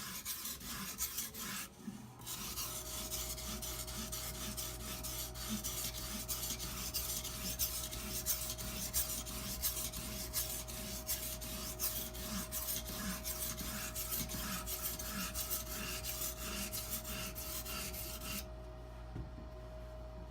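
Water stone of an Edge Pro Apex sharpener stroked along a butcher knife's edge: repeated light rasping strokes that stop shortly before the end. A steady low hum with a faint steady tone comes in about two seconds in and carries on.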